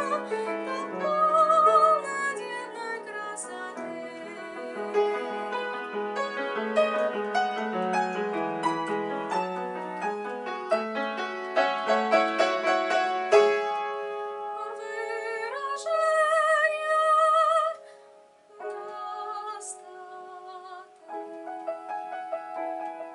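Soprano singing with vibrato over grand piano accompaniment in a classical art song. The voice sings at the start and holds a long note before the piano continues alone, more quietly, near the end.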